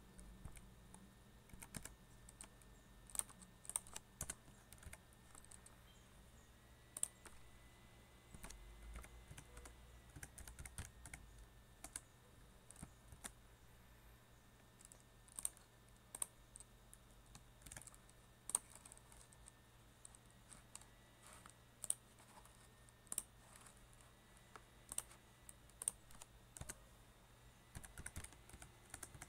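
Faint computer keyboard typing: irregular bursts of keystrokes as code is entered.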